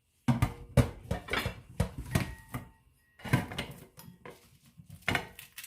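Hard Alaska crab shells knocking and clicking against a dish as the crab is handled. The knocks come irregularly, with a short pause about halfway through.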